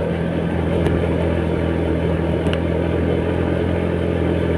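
Motor scooter engine running at a steady cruise, with tyre and road noise and a couple of faint clicks.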